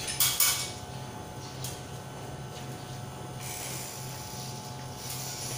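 Steady low electrical hum of a running machine, with a few sharp knocks about half a second in.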